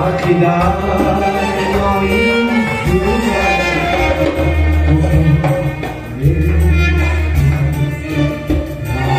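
Live Central Asian folk music, amplified: synthesizer keyboard with a steady bass-heavy beat and a man singing.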